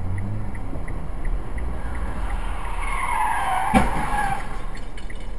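Car tyres squealing briefly about three seconds in, the pitch falling, with a sharp knock near the end of the squeal. Underneath is the steady rumble of a car on the road and a light ticking about two or three times a second.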